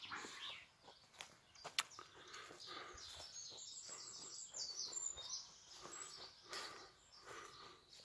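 Faint birds chirping and singing, with soft footsteps on a leaf-strewn dirt path and a single sharp tick a little under two seconds in.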